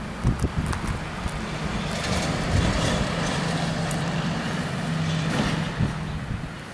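A motor vehicle passing on the street, its engine drone building from about two seconds in and fading away near the end. A few low knocks sound at the start.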